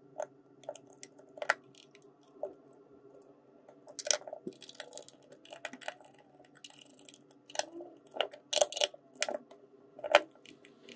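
The plastic case of a Extech DT100M laser distance meter being handled and pressed back together by hand: scattered clicks and snaps, with a quick run of sharper clicks about eight to nine seconds in.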